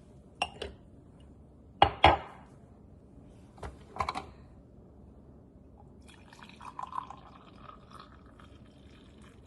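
Water being added to a small drip coffee pot: a few sharp knocks and clunks of handling, the loudest pair about two seconds in, then water pouring or filling for a few seconds near the end.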